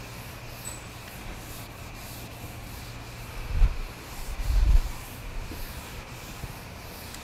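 A felt board eraser wiping a chalkboard in repeated back-and-forth strokes, a steady rubbing hiss. A couple of dull low thumps come about halfway through.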